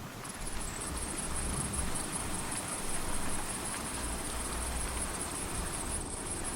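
Rain ambience with a steady high chirring like crickets and intermittent low rumbles of distant thunder.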